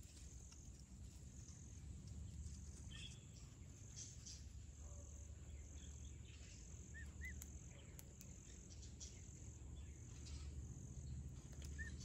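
Faint outdoor ambience: a steady high insect drone, with a pair of soft short chirps about seven seconds in and another pair near the end.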